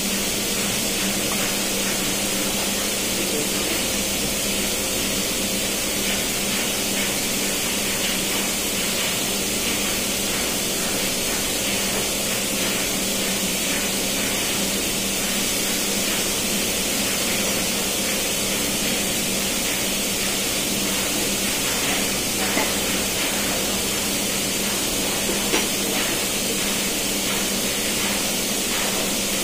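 Steady machinery noise of a ship's engine room: a constant loud hiss over an even hum. Two brief knocks come near the end, about three seconds apart.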